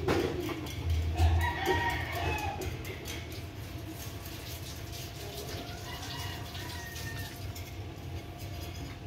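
Chickens clucking, with a rooster crowing.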